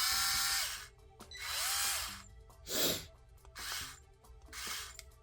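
Worx WX240L 4-volt cordless screwdriver's motor run in short trigger pulls. Two runs of about a second each have a whine that rises, holds and drops off. Three shorter blips follow, about a second apart.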